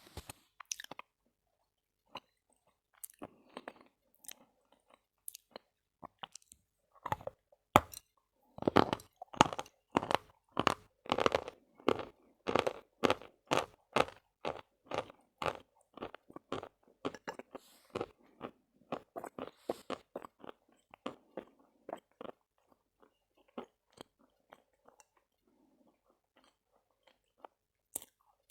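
Chalk being chewed close to the microphone: crisp crunching bites, a few scattered ones at first, then a steady run of about two crunches a second through the middle, thinning out again near the end.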